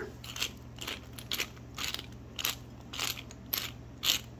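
Pepper grinder cracking black peppercorns: a run of short gritty crunches, about two a second.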